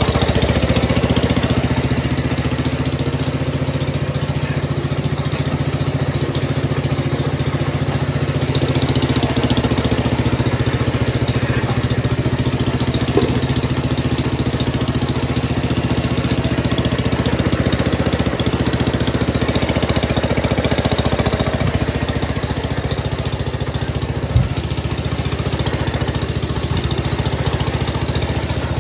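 Gravely Commercial 10A walk-behind tractor's engine running steadily under load, powering a Dogeater snowblower attachment, with a couple of brief knocks.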